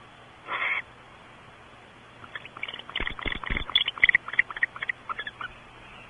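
Barn owl calling: one short call about half a second in, then about three seconds of rapid twittering chirps. A few dull knocks come in the middle of the twittering.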